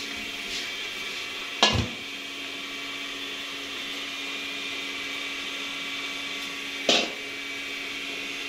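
Steady hum of a small electric motor with a constant tone, broken by two sharp knocks, one just under two seconds in and one about seven seconds in.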